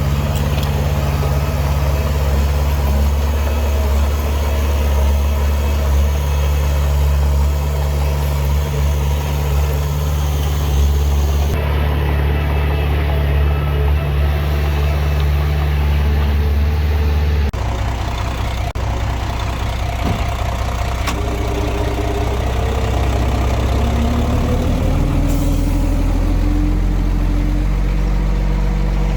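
Heavy diesel construction-machine engines running steadily with a deep drone. Partway through the sound changes suddenly to another engine, whose note rises near the end as it revs up.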